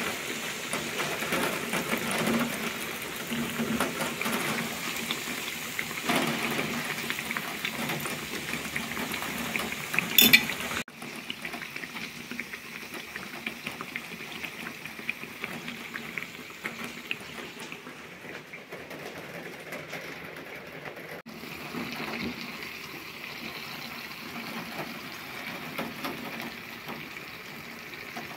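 Sopaipillas deep-frying in hot oil, a steady sizzle and crackle. A brief sharp clatter comes about ten seconds in, after which the sizzle is quieter.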